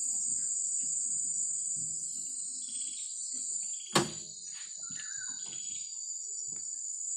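Steady high-pitched chorus of insects, like crickets, with faint scraping and handling sounds from hands and a tool working at the oil filter under the bonnet. About four seconds in there is a single sharp knock, the loudest sound.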